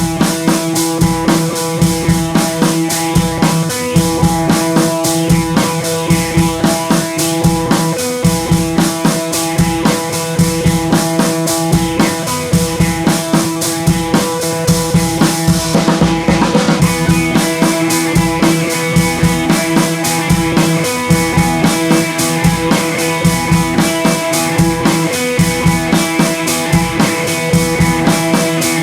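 Background music: a drum-kit beat with bass drum and snare, over sustained tones and guitar, with a brief break about sixteen seconds in.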